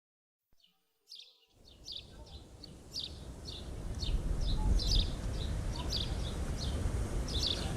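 Small birds chirping, a string of short high chirps repeating a few times a second over a low outdoor rumble, starting about a second and a half in after near silence.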